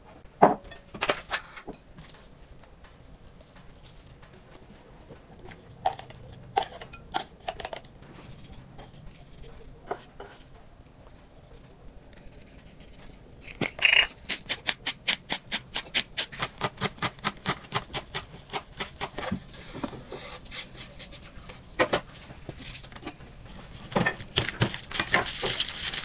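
Kitchen prep sounds: a few scattered knocks and handling clicks, then, from about halfway, a utensil stirring dried herbs into a thick sauce in a glass bowl, clicking against the glass about four times a second. Near the end comes a denser dry crackle of garlic skins being peeled by hand.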